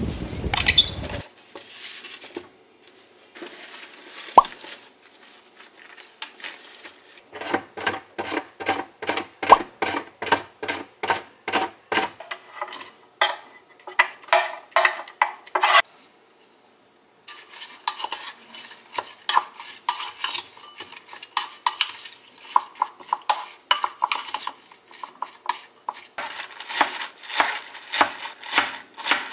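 Kitchen utensils knocking and clinking against dishes in quick, even runs of sharp strikes, about four a second, during food preparation. The strikes start a few seconds in and break off briefly past the middle.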